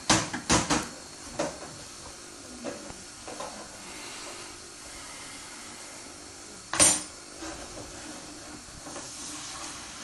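Samsung WW80J5555FWEU front-loading washing machine washing on its Delicates 40 °C cycle: a steady wash of water in the turning drum with sharp knocks as the load tumbles, a quick run of them at the start and a single louder one about seven seconds in.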